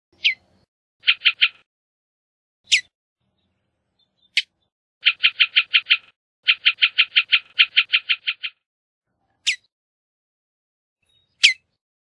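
Bullock's oriole calling: single sharp falling call notes a few seconds apart, between three rapid dry chatters of evenly spaced notes, the longest lasting about two seconds.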